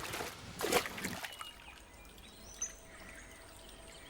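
Water splashing and pouring for about the first second, then a quieter stretch with a few faint, short bird chirps and whistles.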